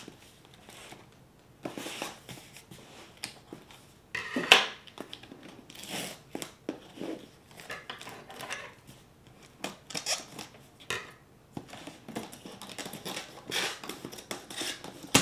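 Scissors slitting the packing tape on a cardboard box, with tape pulled off and cardboard scraping and rustling in irregular strokes, the loudest about four seconds in.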